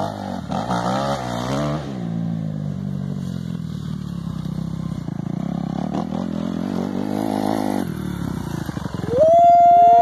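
Dirt bike engine running as the bike rides along a dirt track, its pitch wavering up and down with the throttle. About nine seconds in it turns much louder and higher, rising, holding and dropping twice in revs close to the microphone.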